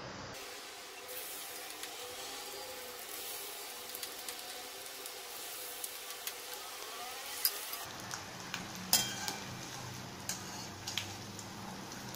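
Batter-coated paneer cubes deep-frying in hot oil in a steel kadhai, a steady sizzling hiss, with a few light clicks in the second half.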